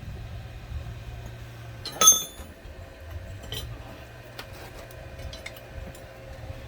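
Welded steel pieces clinking as they are handled, with one sharp ringing metallic clank about two seconds in and light taps before and after it, over a low steady hum.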